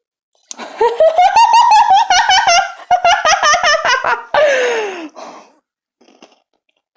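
High-pitched laughter in rapid pulses for about three and a half seconds, ending in a falling squeal.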